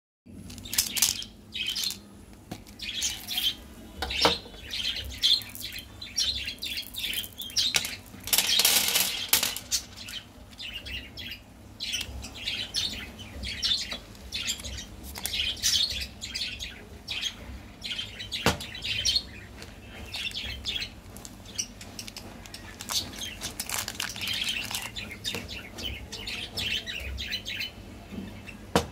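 Close-miked eating sounds: wet chewing, slurping and mouth smacks, in quick irregular bursts with a few sharp clicks and a louder stretch about eight seconds in.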